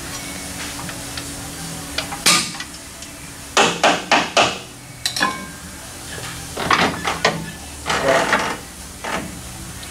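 Metal hand tools and front-suspension parts clinking and clanking as they are worked by hand: a sharp knock about two seconds in, then irregular clusters of quick metallic clanks, over a steady low hum.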